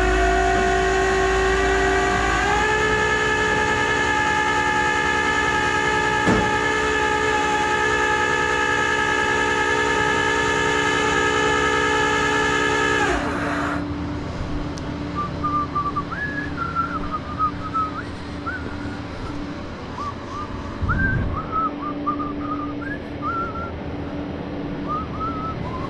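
Tow truck's hydraulic pump whining steadily under load, stepping up in pitch about two seconds in and cutting off suddenly about halfway through. A low engine hum carries on after it, with faint high chirps.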